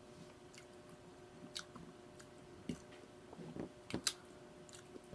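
A person chewing food close to the microphone, with a few soft, scattered mouth smacks and clicks.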